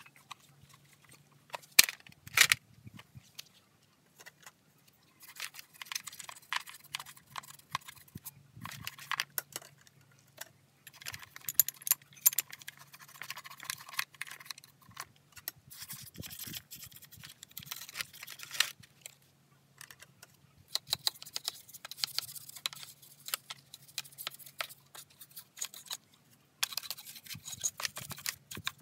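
A brush scrubbing the grimy bar and chain of a Stihl MS170C chainsaw in irregular strokes: dry scratching mixed with light clicks and metallic rattles of the chain, with a few sharp knocks about two seconds in.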